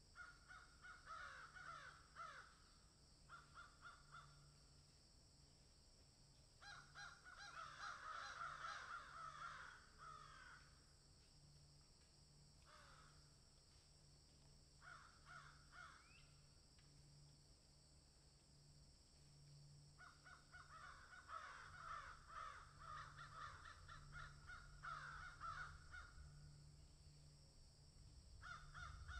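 Faint harsh animal calls in bursts of rapid repeats, separated by quieter gaps, over a low hum.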